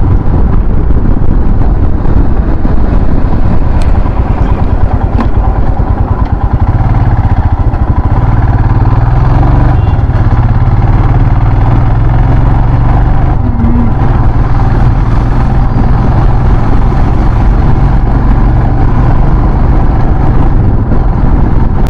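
Motorcycle engine running steadily under way, its low note strengthening about eight seconds in as the bike picks up after the toll lane, over steady wind and road noise on the microphone.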